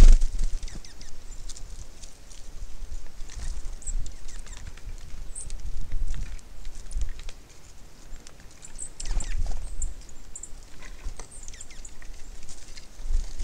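Wind gusting on the microphone in low rumbles, over small taps and scratches of birds pecking seed at a feeder, with a few very short, high chirps.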